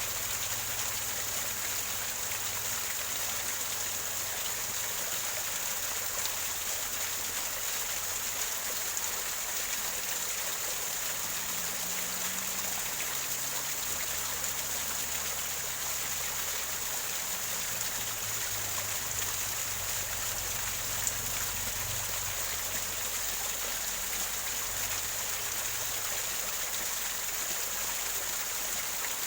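Small waterfall gurgling over rocks: a steady, unbroken rush of falling water.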